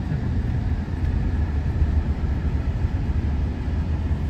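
Steady low road and engine rumble inside a moving vehicle.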